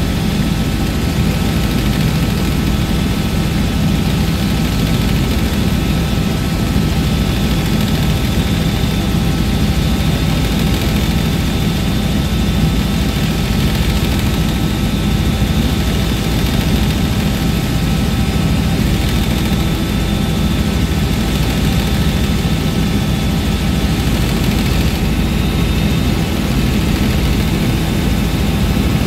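Helicopter in steady cruise flight, heard from inside the cabin: a constant loud drone of engine and rotor with a few steady whining tones over it.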